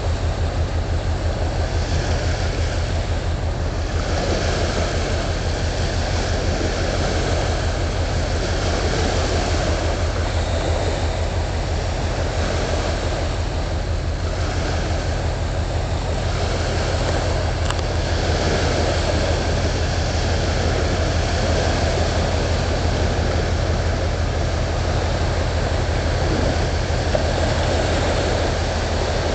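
Marine engine running with a steady low drone and a fast, even throb, under a constant rushing hiss of wind and water.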